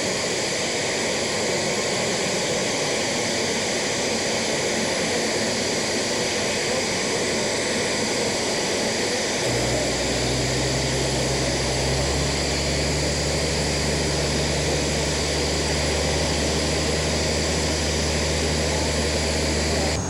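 Jet transport aircraft engines running, a steady rush of noise with a high whine. About halfway through, a low steady engine drone joins in.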